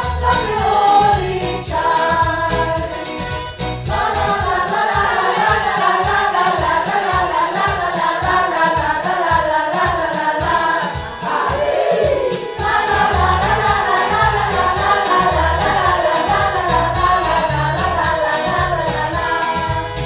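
A choir singing a gospel-style church song over a steady beat of accompaniment.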